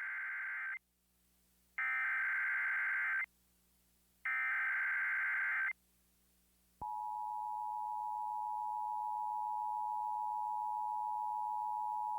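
Emergency Alert System SAME header: the tail of one burst of shrill warbling data tones, then two more full bursts, each about one and a half seconds long with about a second of quiet between them. About seven seconds in, the EAS attention signal starts, a steady two-note tone that holds on.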